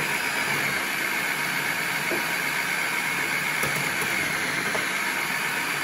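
Bosch MCM 3200W food processor's 800-watt motor running steadily as a potato is pressed down the feed tube onto the cutting disc and cut into thick strips.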